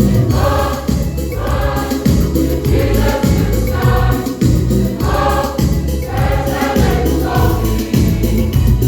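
Youth and Sunday school choir singing a Christmas medley in many voices over a backing with a steady beat and bass.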